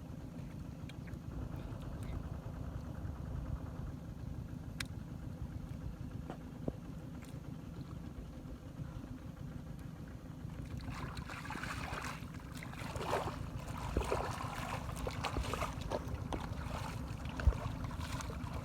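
Shallow muddy water splashing and sloshing in irregular bursts as hands grope through it for catfish, starting a little past halfway, over a steady low rumble.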